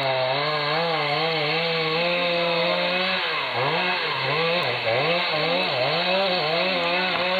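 Chainsaw engine running. Its pitch holds steady for the first three seconds, then dips and recovers several times over the rest of the clip.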